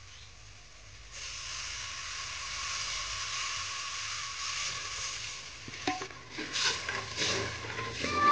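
Hot curry sizzling in an aluminium pot over a wood fire as liquid is poured in from a small steel jug, the hiss starting suddenly about a second in. From about six seconds a steel ladle stirs and clinks against the pot.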